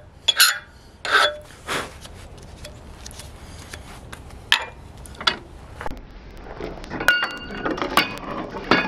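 A few strokes of a hand file rasping across a small forged steel piece clamped in a bench vise, then a cluster of light metallic clinks with a brief ring near the end as the steel is handled in the vise.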